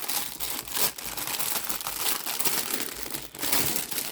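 Packaging and envelopes crinkling and rustling as they are handled, with brief pauses about a second in and near three seconds.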